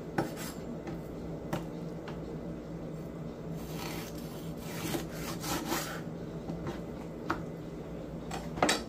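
A chef's knife cutting raw chicken wings apart at the joint on a wooden cutting board: a series of short knocks of the blade on the wood, roughly a second apart, with some scraping of the blade across the board.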